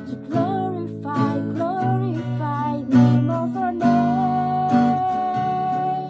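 Capoed acoustic guitar strummed in slow chords, with a woman's voice singing a worship-song melody over it that ends on a long held note.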